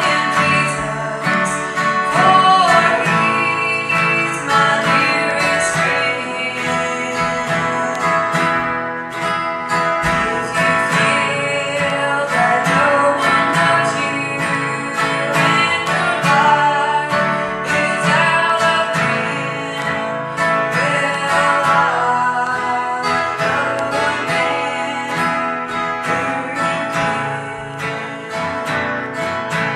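Music: a strummed acoustic guitar with a voice singing over it.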